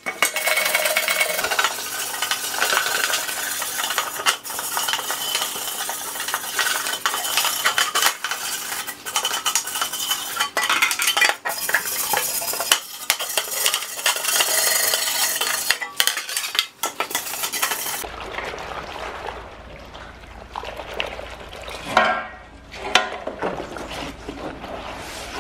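A stiff hand brush scrubbing dirt and rust off the sheet-metal parts of an old vegetable slicer, a dense, rapid scratching. About three-quarters of the way through it changes to quieter scrubbing of a rusty metal pan in soapy water, over a low steady hum.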